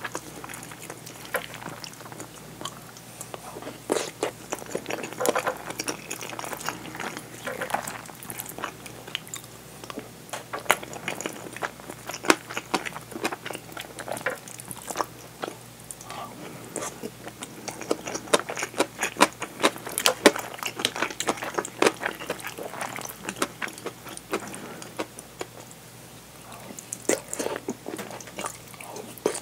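Close-miked eating: wet chewing and many small mouth clicks of a person eating curry and rice, with a wooden spoon scooping against the ceramic bowl.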